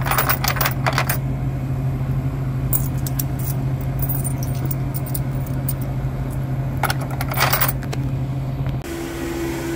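Coins clinking as they are dropped by hand into a vending machine's coin changer tubes to top up its change, in three short bursts of clinks. A steady low hum runs under them and stops suddenly near the end.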